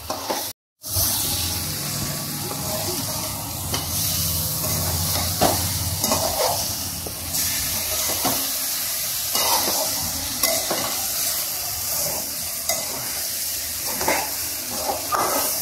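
Fish steaks frying in oily onion-tomato masala in a metal pan, sizzling steadily, while a metal spatula turns them over, with scattered scrapes and taps of the spatula against the pan.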